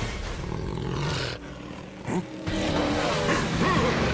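Cartoon action sound effects: a beast-like creature growling and roaring over vehicle engines. The noise drops in a short lull about halfway through, with one sharp knock, then builds again.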